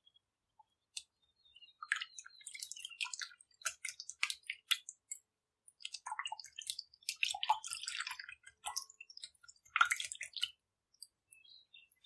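Silicone whisk beating a thin milk-and-yeast liquid in a glass bowl: quick, wet splashing and slapping. It pauses briefly about halfway through, then goes on until shortly before the end.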